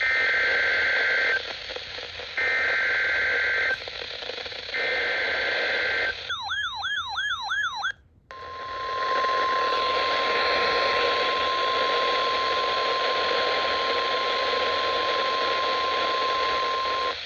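Emergency Alert System header on a weather radio broadcast, heard over radio hiss: three bursts of SAME data tones, each about a second and a half long. About six seconds in comes a short warbling alarm tone, then the steady 1050 Hz weather radio warning tone for about nine seconds, announcing a severe thunderstorm warning.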